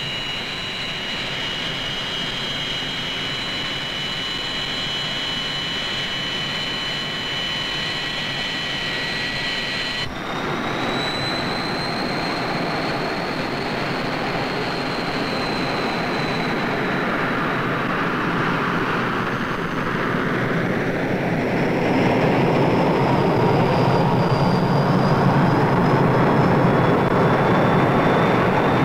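Hawker Hunter's single Rolls-Royce Avon jet engine running as it taxis: a steady high-pitched turbine whine over a broad roar. The sound changes abruptly about ten seconds in, and in the second half the roar swells and grows louder.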